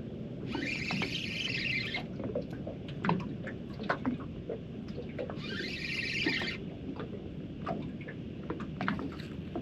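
Fishing reel whirring in two bursts of about a second and a half each, some five seconds apart, while a hooked flathead is played on a bent rod. Light knocks and a steady low rumble sit underneath.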